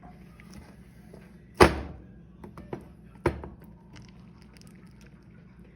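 Two heavy thuds about a second and a half apart, with a few lighter clicks between them: a potato masher pounding down on honeycomb in a container to crush it.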